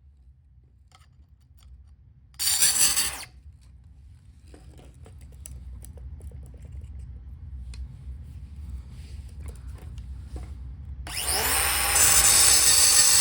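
Handheld electric power tool run in a short loud burst, then light clicks and handling, then spinning up with a rising whine to a loud, steady high whine.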